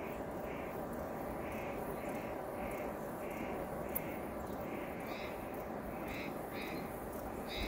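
A bird calling over and over, short calls about two a second, over a steady background hiss.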